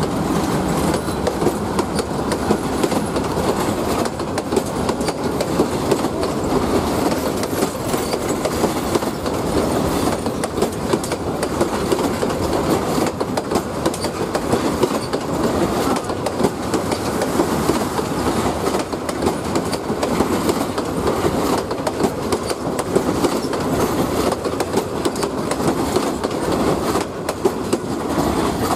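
Bangladesh Railway passenger coaches rolling past close by: a continuous rumble with a quick clatter of wheels over the rail joints.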